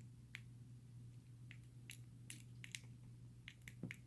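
Faint, scattered small clicks and taps of tools and small metal parts as a dimple lock's pins and springs are handled, over a steady low hum.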